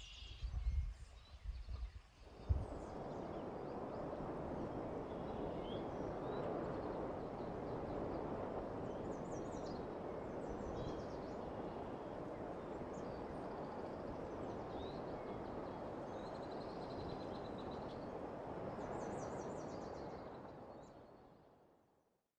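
A few low thumps, then a steady rushing outdoor ambience with birds chirping now and then over it; it fades out near the end.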